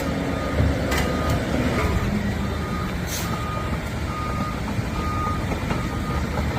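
Bulldozer's reversing alarm beeping about once every 0.8 seconds over the low rumble of its running diesel engine, with a few sharp clanks.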